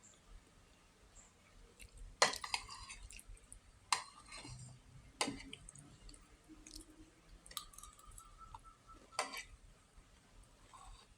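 Eating sounds: four sharp clinks of tableware against a dish, some with a short ring, and faint chewing between.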